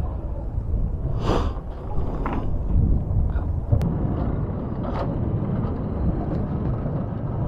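Alpine coaster sled running down its tubular steel rails: a steady low rumble from the wheels on the track, with a few short clicks and rattles along the way.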